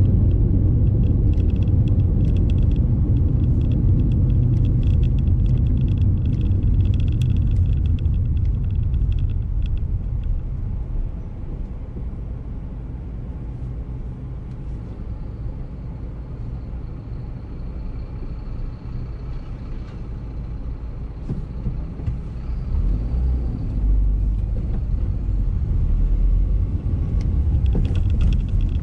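Car road and engine rumble heard from inside the cabin while driving. It quietens as the car slows and waits in traffic about halfway through, then rises again as it pulls away.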